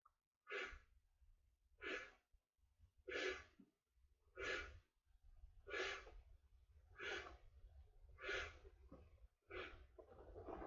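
A person blowing up an inflatable vinyl raft by mouth: eight steady, rhythmic breaths about every 1.3 seconds, faint.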